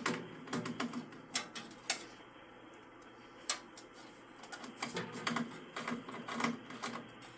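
Scattered clicks and taps of metal tools and parts against a signal generator's metal chassis during disassembly. A few separate clicks come early, a single one near the middle, and a quicker run of taps later.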